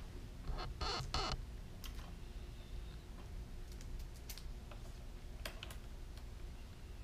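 Small clicks and rustling of wires and plastic-insulated spade connectors being handled and pushed together by gloved hands, with a louder scraping rasp about a second in and scattered clicks after. A steady low hum runs underneath.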